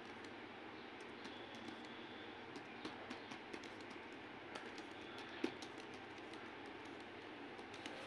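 Computer keyboard being typed on in short, irregular runs of faint key clicks over a steady background hiss, with one louder click about five and a half seconds in.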